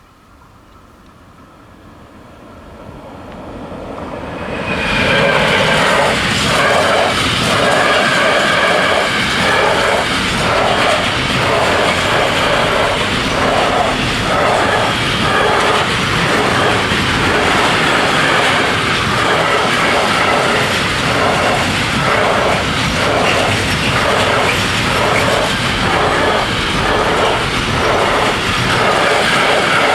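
Metrans freight train approaching, its rumble building over the first few seconds, then passing close by at speed. The wagon wheels clatter in a steady rhythm over the rail joints, about one and a half knocks a second.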